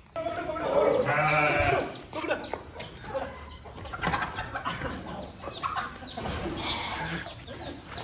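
A bleat from the sheep and goats, long and wavering, near the start, then hens clucking and scattered scuffs and footsteps in the dirt.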